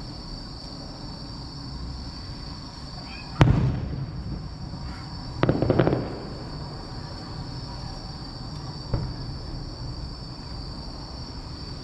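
Aerial fireworks shells bursting: a sharp bang about three and a half seconds in, a double burst around five and a half to six seconds, and a fainter bang about nine seconds in, each with a short rumbling tail.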